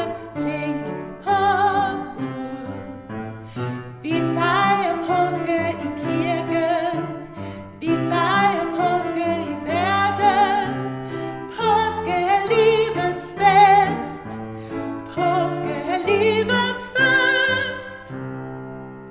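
Woman singing a Danish children's hymn in Danish with piano accompaniment, her voice carrying vibrato on the held notes. The song closes near the end and the sound dies away.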